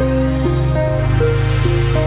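Background electronic music: a repeating pattern of synth notes, about two a second, over a sustained bass that moves to a new note a little under a second in.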